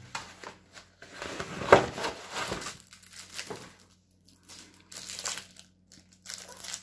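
Cardboard mailer envelope and a plastic-wrapped diamond painting kit being handled: irregular crinkling and rustling of cardboard and clear plastic, with short pauses, loudest about two seconds in.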